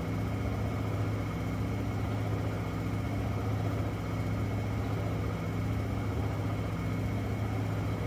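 Whirlpool Cabrio top-load washing machine in its high-speed spin: a steady, even purring hum from the motor and spinning drum, with no banging or knocking. This is the sign of a balanced drum on repaired suspension rods.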